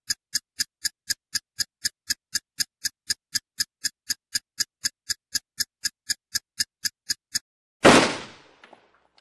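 Intro sound effect: steady clock-like ticking, about four ticks a second, counting down. It stops about seven seconds in, and a single loud bang follows, dying away over about a second.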